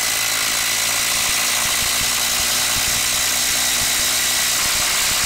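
Bosch brushless impact driver hammering continuously as it drives a long TimberLOK structural screw into a wood stump, a steady, unbroken impacting rattle under load.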